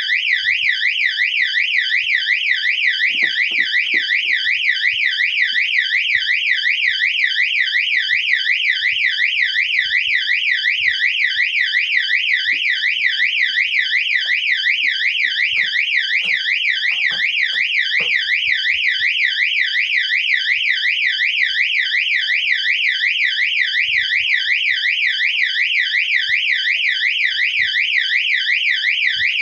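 QWORK electronic fire alarm siren-and-strobe unit sounding continuously: a loud, shrill warble whose pitch sweeps rapidly up and down several times a second without a break.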